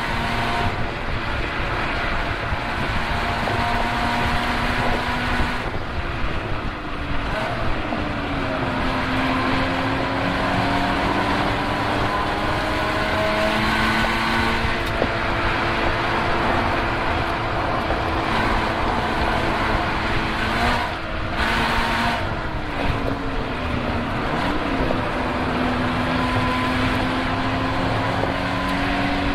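Car engine being driven hard on a lap, its note slowly rising and falling with speed. The pitch drops sharply twice, about six seconds in and again about twenty-one seconds in, then climbs again as the car accelerates.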